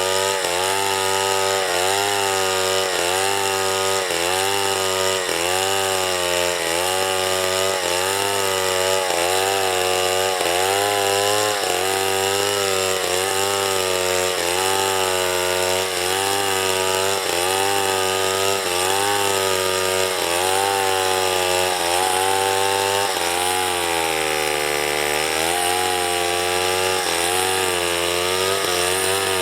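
Two-stroke chainsaw running under load while cutting wood. Its engine pitch rises and falls about every second as the chain bites and frees in the cut, with one deeper drop and recovery near the end.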